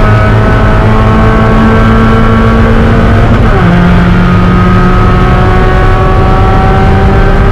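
Spec Miata's inline-four engine pulling hard under racing load, its pitch climbing slowly. About three seconds in the revs drop sharply on an upshift, then climb again in the next gear.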